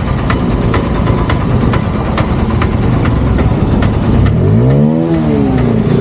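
Motorcycle engine running at low speed while riding slowly, with one throttle blip about five seconds in that makes its pitch rise and fall.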